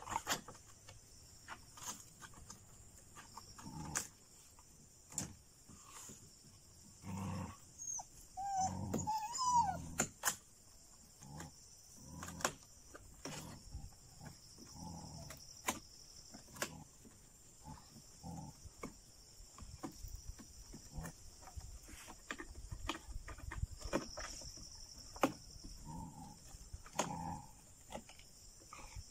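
Dogs fighting a jungle cat: scattered short animal cries and one rising yowl about nine seconds in, over a steady chirring of crickets.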